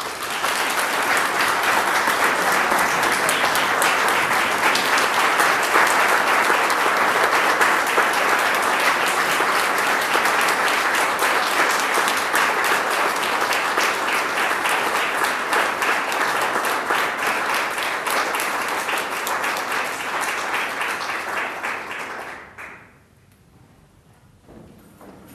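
Audience applauding: dense, steady clapping from many people that goes on for over twenty seconds and then dies away fairly quickly near the end.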